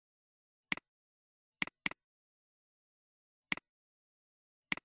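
Computer mouse clicking five times, each a sharp click followed by a quick second tick, with two clicks close together about two seconds in.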